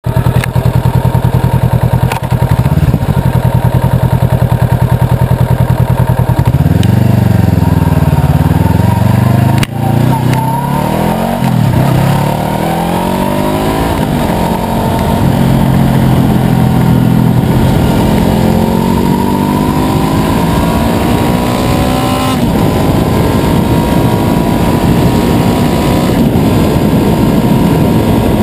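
Honda CBR500R's parallel-twin engine idling with an even pulsing beat, then revved up and down a few times. After a brief drop-out about ten seconds in, its pitch climbs in a long, slow rise, and near the end it settles into a steadier, noisier run.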